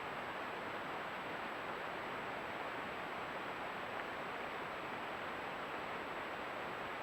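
Steady hiss with a faint, thin high whine above it: the recording noise of a trail camera's microphone, with no distinct animal sound.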